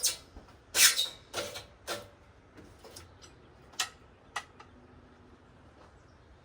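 A handful of irregular sharp clicks and knocks, bunched in the first two seconds with two more about four seconds in.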